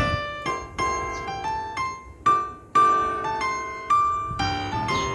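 Background piano music: a melody of single struck notes, about two a second, each ringing and fading.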